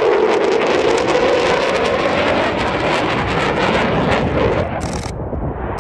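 Low-flying aircraft passing through a valley, a loud, steady rushing engine noise with wind on the microphone.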